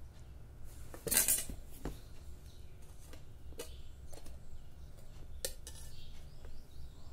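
Cutlery clinking and scraping against a dish while Maggi noodles are eaten: one louder scrape about a second in, then several short, sharp clinks about a second apart.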